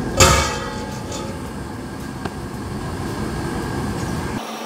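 A steel lid is set down on a large aluminium daig (cooking pot) with one ringing metallic clang about a quarter second in. Under it runs the steady low rumble of the burner flame beneath the pot, which changes near the end.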